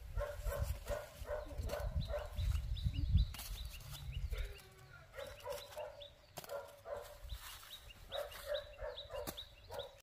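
Repeated short animal calls, several a second, with rustling as dry corn husks are handled during the first few seconds.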